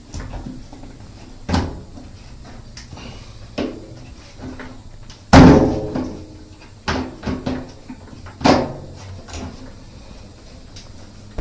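A series of sharp knocks and clunks as washing-machine parts are handled and fitted back on during reassembly after the inlet valve was replaced, the loudest about five and a half seconds in.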